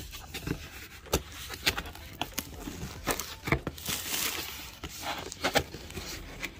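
Cardboard product box being handled and pulled open by hand: a run of irregular taps, knocks and scrapes of cardboard.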